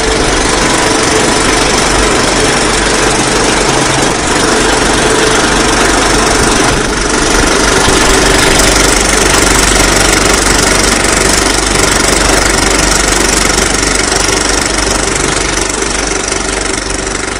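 Live rock band playing loud and overloading the microphone, so that the music comes out as a dense, distorted roar with a few faint held notes underneath; clearer pitched music starts right after.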